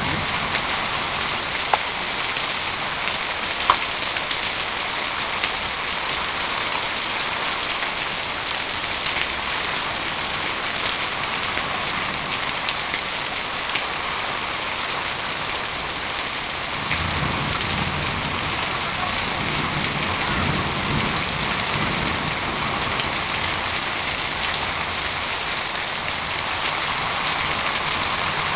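Heavy rain pouring steadily on the ground and roofs, with a couple of sharp drip ticks near the start and a low rumble for a few seconds past the middle.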